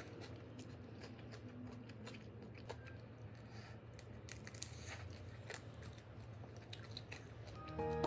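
Close-up chewing and crunching of spicy squid salad with crisp bean sprouts: a run of small irregular crunches and clicks. Music comes in right at the end, louder than the chewing.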